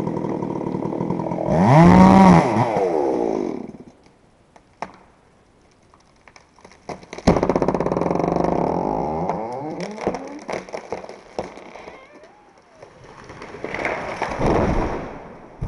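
Chainsaw running, revving up once and falling back, then cutting off about four seconds in. After a few seconds' pause it starts again abruptly, runs and dies down, and revs once more near the end.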